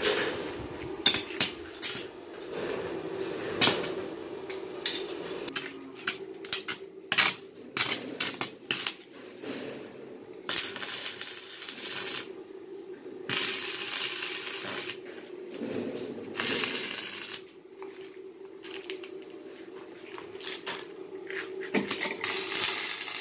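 Stick arc welding on a steel door frame: the electrode arc crackles and sizzles in several bursts of a second or two, with sharp clicks as the arc is struck and broken. A steady low hum runs underneath.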